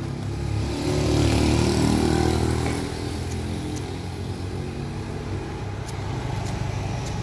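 A motor vehicle engine running, growing louder about a second in and then settling to a steady drone.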